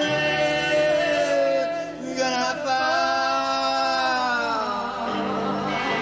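Live rock band with electric guitars, a male voice singing long held notes that slowly bend in pitch.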